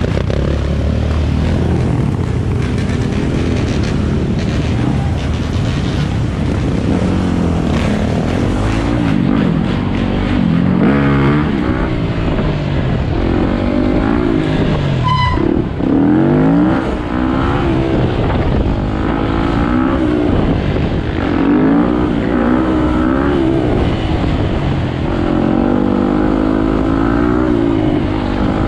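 Dirt bike engine revving hard and easing off again and again, its pitch climbing and dropping through the gear changes, heard from on the bike.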